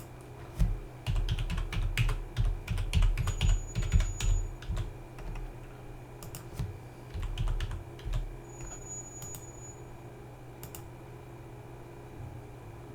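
Typing on a computer keyboard: a quick run of key presses for about seven seconds, then only an odd key over a steady low hum.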